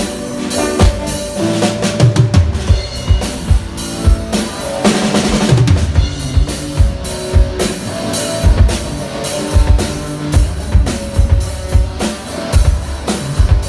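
Drum kit playing a steady beat on kick and snare, with bass and other instruments holding pitched notes underneath. A cymbal crash washes over it about five seconds in.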